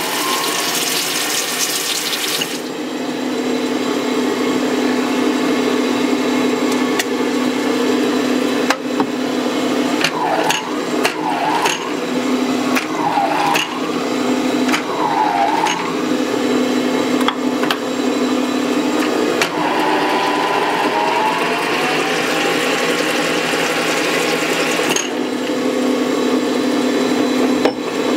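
Old turret lathe running under load, its electric motor humming steadily and straining. A hissing cutting noise with a whine comes near the start and again about twenty seconds in, and there are short squeals between about ten and sixteen seconds in.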